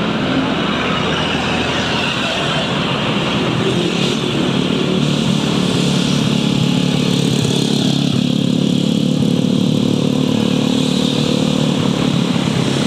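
Motorcycle engine running steadily while riding in traffic, with road and wind noise on the microphone and other motorbikes passing close by.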